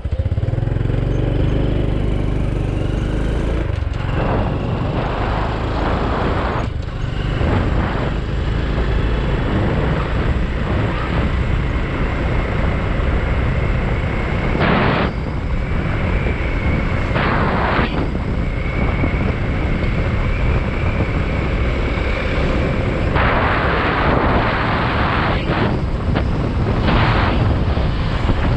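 Motorbike riding along a road: the engine runs under a heavy low rumble, picking up speed in the first few seconds, with noise that swells and eases now and then.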